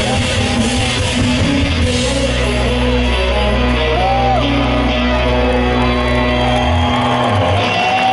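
Indie rock band playing live over a festival PA, recorded from the crowd: held bass notes and electric guitar with a female voice singing, in the closing bars of a song.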